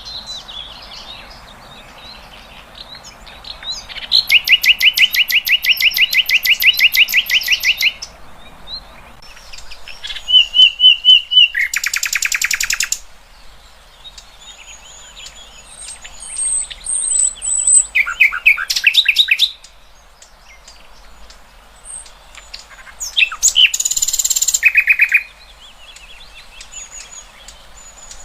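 Songbird song from a masteran recording for tutoring caged competition birds: four loud bursts of fast, high trills and chattering phrases, the first an even trill of about four seconds, with faint twittering between.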